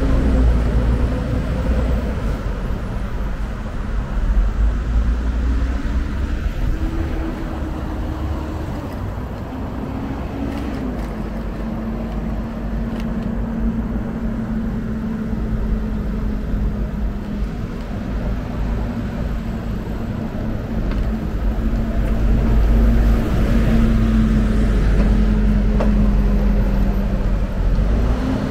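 City street traffic heard from a moving bicycle, with heavy wind rumble on the microphone. A steady droning hum runs underneath; it rises in pitch about six seconds in and settles back a few seconds later.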